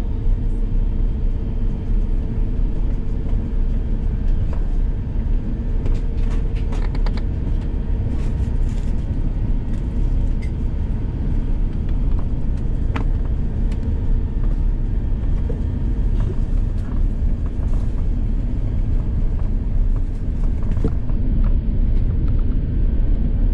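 Steady low rumble inside the cabin of an Airbus A350-1000 on the ground before take-off, its Rolls-Royce Trent XWB engines running at low power, with a faint steady hum and a few light clicks.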